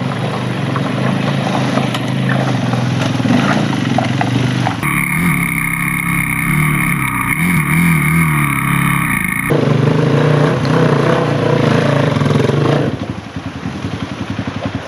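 Enduro motorcycle engines running and revving over rough ground. The sound changes character between about five and nine and a half seconds in, and it drops quieter near the end.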